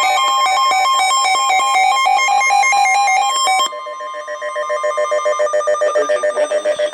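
Electronic alert tones ahead of an Emergency Alert System weather warning: a fast run of beeping tones that change pitch rapidly, then, a little over three and a half seconds in, a lower tone pulsing several times a second like a telephone ring.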